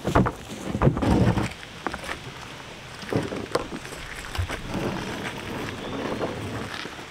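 Wind buffeting the microphone, with knocks and scrapes as a plastic sit-on-top kayak and its paddle are handled at the water's edge. The loudest gusts and thumps come in the first second and a half; scattered knocks follow.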